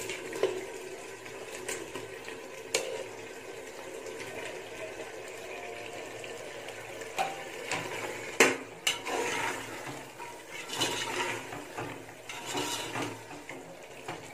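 Raw chicken pieces tipped from a plate into an aluminium pot of wet masala, with a few sharp clinks of a metal slotted ladle against the pot. In the second half the ladle stirs and scrapes through the thick, sizzling mixture.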